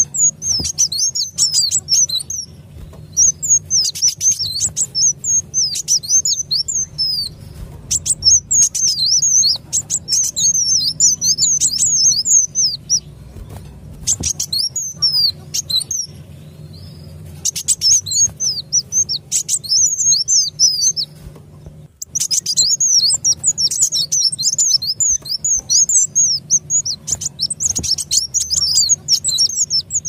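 Sunbirds (kolibri wulung) in an excited chorus of rapid, high, twittering chirps that come in dense runs of a few seconds with short pauses between them. It is a lure call used to draw wild sunbirds in for trapping. A faint steady low hum runs underneath.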